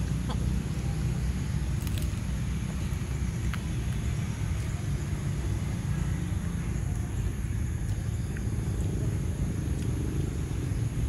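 Steady low rumble, with two faint, steady high-pitched hums above it and a few faint clicks.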